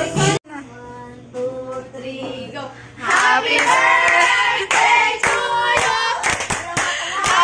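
Music cuts off abruptly at the very start. Then a group of people sing together and clap along, quietly at first and much louder from about three seconds in.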